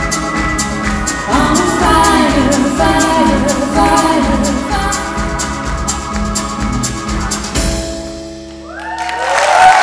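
Live band playing the closing bars of a song: female lead vocals over archtop electric guitar, upright double bass, drum kit and keyboard, with a steady drum beat. About three-quarters of the way through the drums stop and a held final chord dies away, and audience applause rises near the end.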